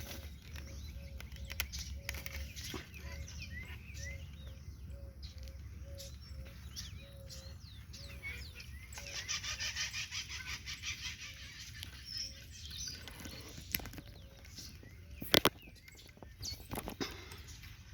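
Birds singing and calling: a short low note repeated about twice a second through the first half, a fast high trill in the middle, and two sharp knocks near the end.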